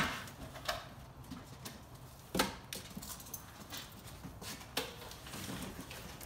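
A cardboard shipping box being opened by hand: its flaps folded back and the packaging handled, with a few separate knocks and scrapes, the loudest about two and a half seconds in.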